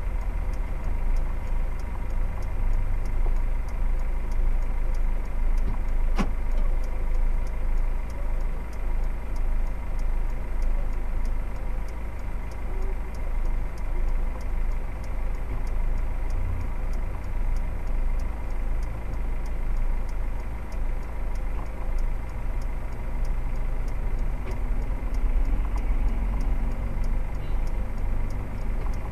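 Engine of a stationary vehicle idling, heard from inside the cab as a steady low rumble, with faint regular ticking over it. One sharp click about six seconds in.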